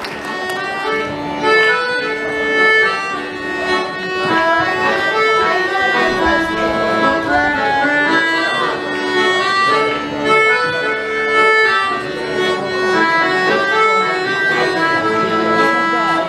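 Solo piano accordion playing a quick tune: a moving melody over sustained chords, with notes changing several times a second.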